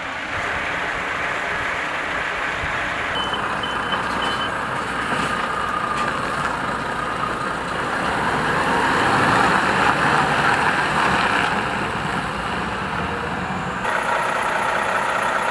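Diesel engine of a Volvo heavy recovery truck running as it manoeuvres, with a few short high reversing beeps about three seconds in. The engine noise grows louder around the middle.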